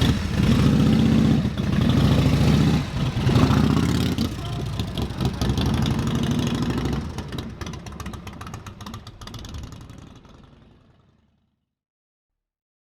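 Harley-Davidson FXR's V-twin engine revving and pulling away, with a few surges and dips in the first few seconds. The engine sound then fades out steadily to silence.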